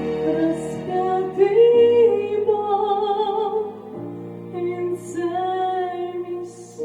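A Christian song's closing passage: a woman sings a slow, wavering melody over sustained accompaniment chords.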